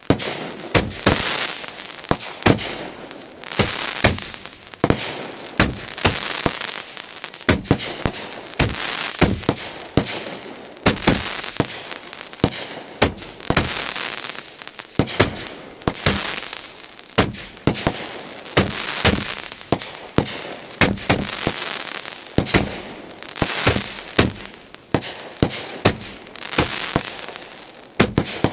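Consumer aerial fireworks bursting overhead in rapid succession: sharp bangs about one or two a second, with a rushing, crackling noise between them.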